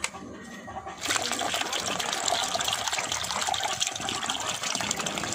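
Coconut water gushing out of a freshly opened young coconut into a plastic basin already holding liquid, a steady splashing pour that starts about a second in. A single click at the very start.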